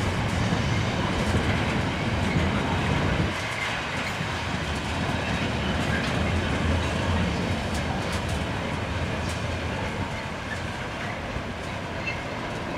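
Freight box wagons of a gypsum train rolling past on the rails, their wheels clicking over the rail joints. The low rumble drops about three seconds in and then fades slowly as the end of the train draws away.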